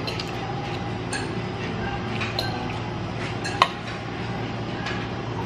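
Metal fork clinking and scraping against a ceramic plate while eating, in scattered light clicks with one sharper clink about two-thirds of the way through.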